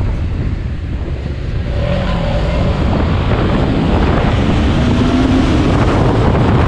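Motorcycle engine running hard under acceleration, its note rising through the middle, buried in heavy wind rush on the microphone.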